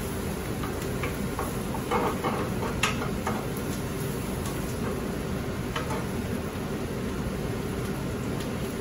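Wooden spoon tapping and scraping a few times against a sauté pan of garlic and shallots sweating in butter, the clearest tap about three seconds in, over a steady hiss.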